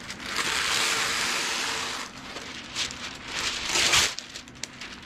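Wax paper rustling and crinkling as it is handled: a steady rush for about two seconds, then several sharper crackles, the loudest a little before the fourth second.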